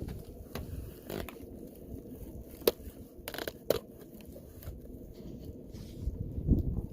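A camera being handled and set back in place: rustling and scraping, with several sharp clicks, the two loudest about two and a half and three and a half seconds in, and a low thump near the end.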